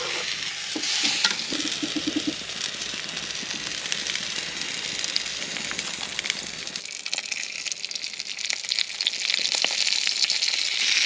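Garlic butter sizzling and crackling as it is spooned over split lobster tails on a hot gas grill, with a few clicks of the utensils on the grate; the sizzle grows louder near the end.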